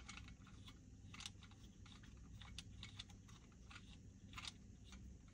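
Faint, scattered clicks and taps of plastic parts as a rear-view-mirror phone holder mount is handled and fitted together, over a low steady hum.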